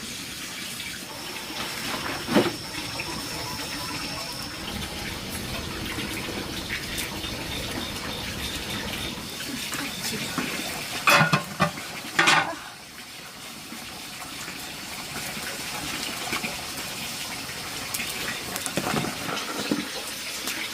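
Steady running water, with a few sharp knocks just past the middle.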